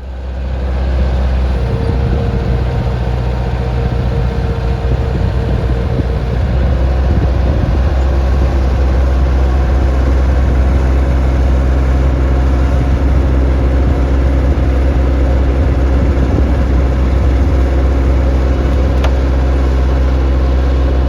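Farm tractor engine running steadily with a strong low drone, with a faint whine over it for the first few seconds.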